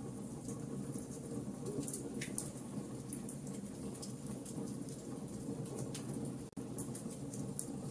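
Wood fire crackling in a fireplace: a steady low rush of the burning fire with frequent small, sharp crackles and pops. The sound cuts out for an instant about six and a half seconds in.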